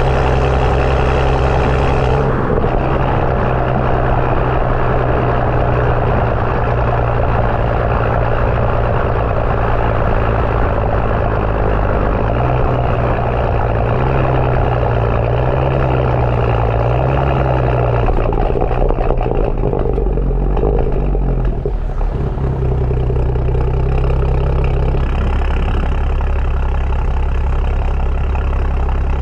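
BMW 335i's turbocharged N55 inline-six, with a catless downpipe and M Performance exhaust, running under way with a deep, steady exhaust drone. The pitch wavers up and down in the middle and shifts a few times with the throttle.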